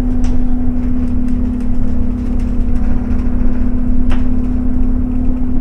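Bus engine and drivetrain heard from inside the passenger saloon, running at speed: a steady drone held at one pitch over a heavy road rumble, with a couple of short rattles from the body.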